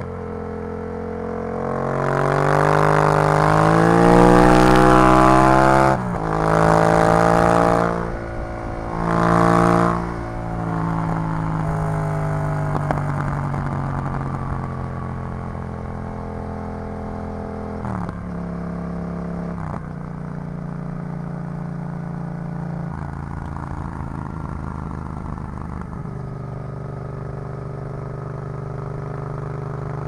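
Yamaha MT-07's parallel-twin engine through an Arrow full exhaust system, on the move: it revs up hard through two quick upshifts in the first ten seconds, then the throttle closes and the revs fall away. It settles to a steadier, lower run with a few more gear changes.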